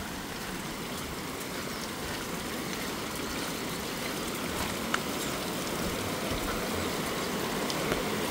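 Flowing water of the Mojaflores river: a steady rush that slowly grows louder, with two short sharp clicks, one about five seconds in and one near the end.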